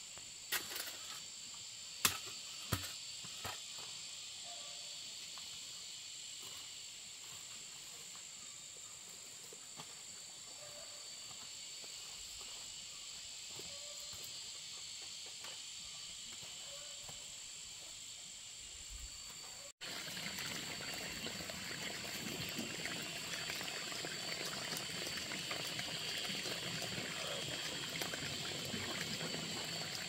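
Insects drone steadily on one high note, with a few sharp knocks in the first three seconds. About two-thirds through, after a cut, a louder rushing, splashing noise of running water takes over.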